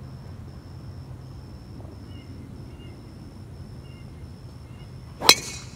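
A driver striking a golf ball off the tee: one sharp crack about five seconds in, the loudest thing by far. Behind it runs a steady, pulsing insect trill.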